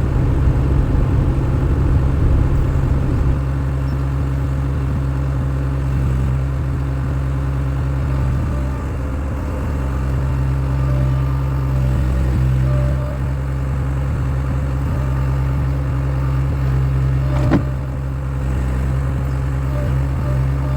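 Skid steer engine running steadily with a low hum, with a single sharp knock near the end.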